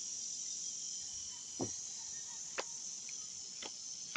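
A steady high-pitched chorus of insects trilling, with a few short clicks about a second apart as a deck of tarot cards is shuffled by hand.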